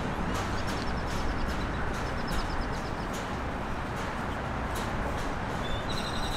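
Steady outdoor background of wind and traffic noise, with brief high bird chirps about half a second in, again around two seconds in, and a longer chirping near the end.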